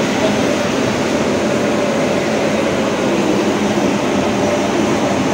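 Steady rushing noise of an automatic train washing plant: water jets spraying and rotating brushes scrubbing the side of a passenger coach that rolls slowly through.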